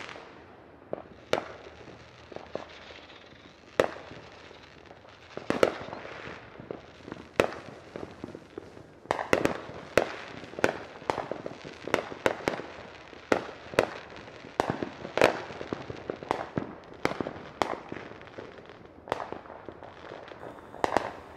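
Neighbourhood fireworks and firecrackers going off: dozens of sharp booms and pops at uneven intervals, coming thickest through the middle stretch.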